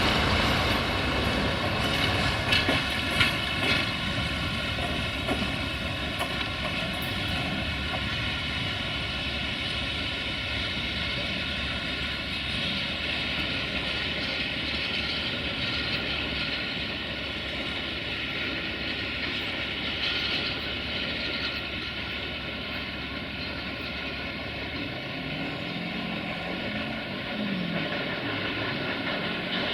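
A train running through the station, with a steady engine whine made of many sustained tones over a low rumble. A few sharp clicks come in the first few seconds, and the sound slowly fades as it goes on. A wavering lower tone joins near the end.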